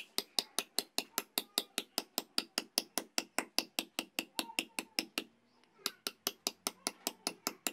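A small hammer tapping a steel chisel against the stone roller of a masala grinding stone, about four to five sharp strikes a second, pecking a rough texture into the stone. The strikes pause briefly about five seconds in, then resume at the same pace.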